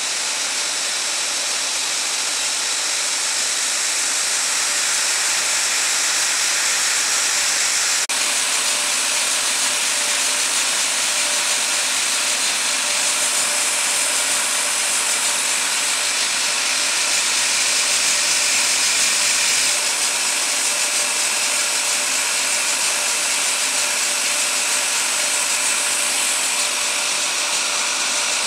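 Bignami RCA M134 paper-converting machine running, paper strips feeding off reels over rollers: a steady mechanical hiss with a faint steady hum.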